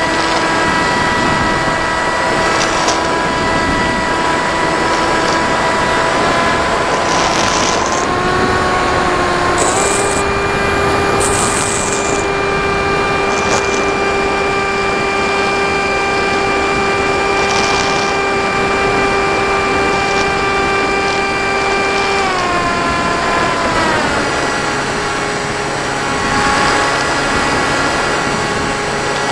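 Model airplane's motor and propeller heard from the onboard camera: a steady whine that steps up in pitch about eight to ten seconds in as throttle is added, holds, then drops back down a little after twenty-two seconds. Short gusts of wind noise rush over the microphone several times.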